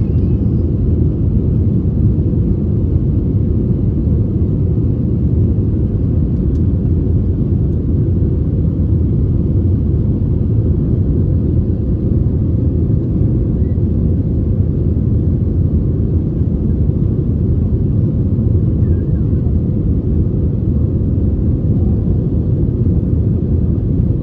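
Steady, low cabin rumble of an Airbus A320neo climbing after takeoff, heard from a seat over the wing: engine and airflow noise, even in level throughout.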